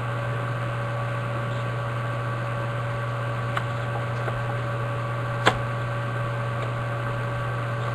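Steady electrical hum and hiss, with a few light clicks from card packs and a card box being handled; the sharpest click comes about five and a half seconds in.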